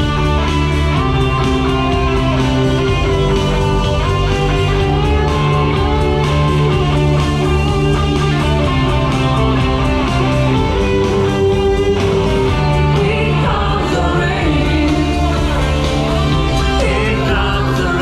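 Rock music with guitar and singing, loud and steady.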